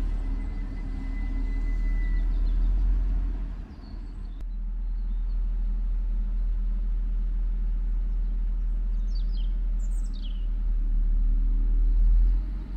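Class 642 Desiro diesel multiple unit at the station, its diesel engines running with a steady low rumble. A thin high squeal sounds for about the first two seconds as the train draws in, and birds chirp briefly around ten seconds in.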